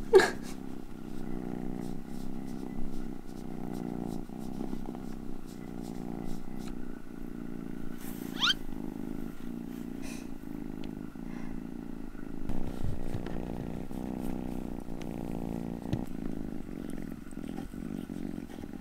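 Golden British Shorthair kitten purring steadily as she is stroked, a continuous low rumble. A short rising whistle-like glide sounds once about eight seconds in.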